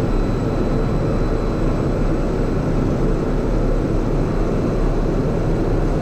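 Piper Meridian M500's Pratt & Whitney PT6A turboprop and propeller running steadily at raised power, heard inside the cockpit. The propeller is held at about 1900 rpm for a governor check during the ground run-up.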